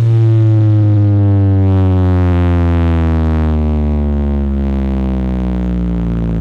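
A loud, sustained synthesizer bass tone in electronic music, sliding slowly and steadily down in pitch.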